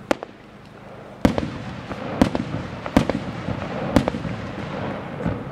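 Fireworks shells bursting overhead: a series of sharp bangs about a second apart, five strong ones and a weaker one near the end, with rolling echo rumbling between them.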